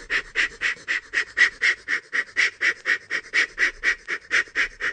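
Steam locomotive puffing along at a steady pace: short rhythmic chuffs, about four a second.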